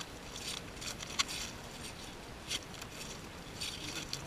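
A freshly landed pike flopping on wet ice: a handful of separate wet slaps and scrapes over a few seconds, ending as hands take hold of the fish.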